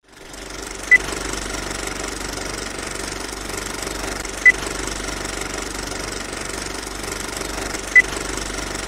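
Old film projector sound effect: a steady rapid mechanical clatter that fades in at the start, with a short high beep three times, about every three and a half seconds.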